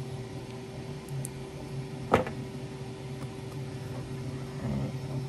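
A single sharp snap about two seconds in as flush cutters clip a stubborn bit of 3D-printed support plastic from a printed part, over a steady low hum.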